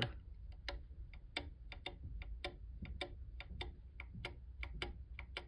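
Linear mechanical keyboard switches pressed and released slowly, one key after another, each stroke a short sharp click, about four clicks a second.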